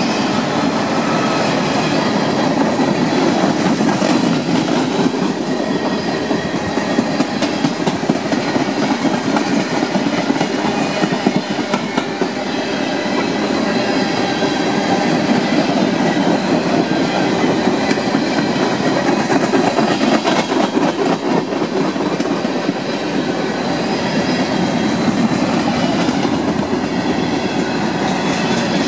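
Mixed freight train of autoracks, tank cars and covered hoppers rolling past close by: a steady, loud rumble and clatter of steel wheels on the rails, with rapid clicking over the rail joints.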